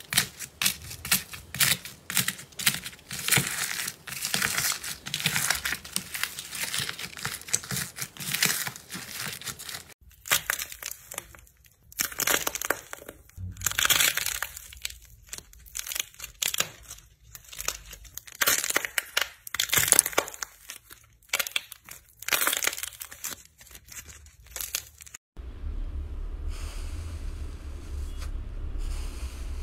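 Slime being pressed and worked by hand, crackling and popping. A fast run of crackles gives way to sparser, separate pops after a cut about a third of the way in. After a second cut near the end, a steady low hum sits under quieter handling sounds.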